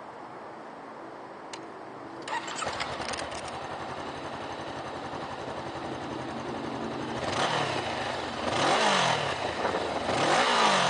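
2013 Honda CBR500R's fuel-injected parallel-twin engine cranked on the starter, catching about two and a half seconds in and settling into an idle. Near the end it is revved three times, each rev rising and falling back.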